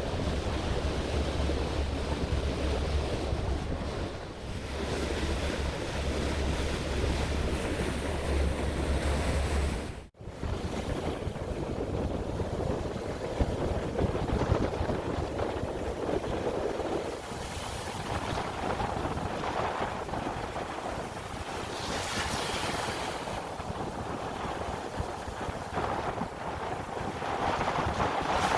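Waves washing onto a Baltic Sea beach, with wind buffeting the microphone in a heavy low rumble. About ten seconds in, the sound cuts out for a moment and comes back with less wind rumble.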